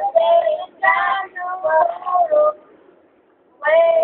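A child singing a cappella, with no accompaniment: a phrase of several held notes, a pause of about a second, then another note begins near the end.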